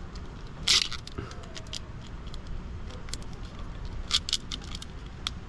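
Plastic wire sleeve being handled and fitted over taillight wiring: scattered small clicks and crackles, with louder rustling scrapes about a second in and again about four seconds in.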